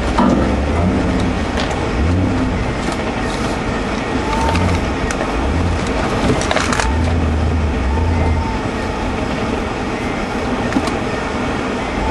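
Land Rover 90 engine heard from inside the cab, revving up and easing off in short spurts as it crawls over rough off-road ground. Scattered knocks and rattles come from the body and suspension.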